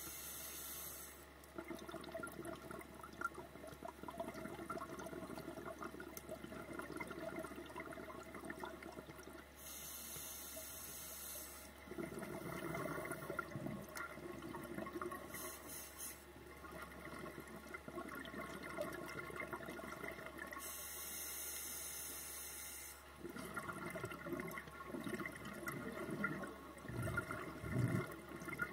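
Scuba diver breathing through a regulator underwater, several breaths: a short hiss on each inhalation, then a long gurgling rush of exhaled bubbles.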